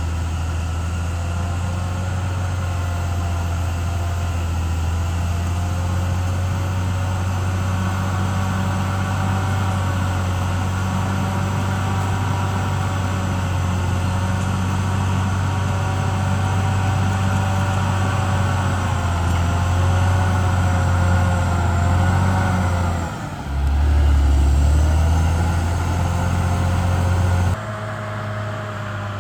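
Caterpillar D6R XL bulldozer's diesel engine running steadily under load, with wavering whines above the engine note. About three-quarters through, the engine sound dips briefly, then comes back with a heavier low rumble; shortly before the end the sound changes abruptly.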